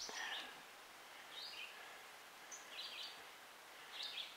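A songbird singing a short, high chirping phrase four times, about every second and a half, over a faint steady outdoor hiss.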